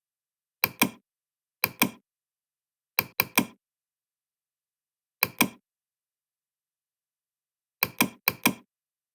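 Short, sharp knocks in quick clusters of two to four, about five clusters over nine seconds, with complete silence between them.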